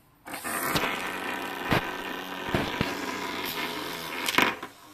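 Small round brushed DC motor, switched on by a GPIO pin through a driver chip, starting suddenly and running in one direction with a steady whir and a few clicks, then stopping near the end.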